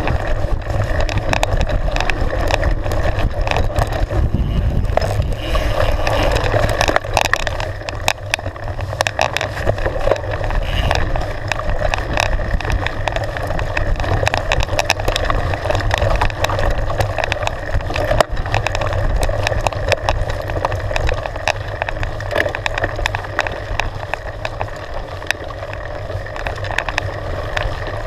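Mountain bike riding fast down a dirt trail: tyres rumbling over dirt and stones, with constant rattles and knocks from the bike.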